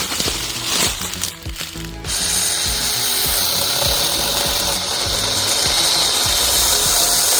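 Battery-powered 4-inch mini electric chainsaw starting up about two seconds in and running steadily at speed, cutting into a branch, after a few knocks of handling.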